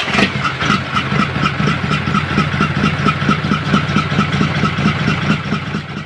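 Truck engine running steadily at idle with a rapid, even throb.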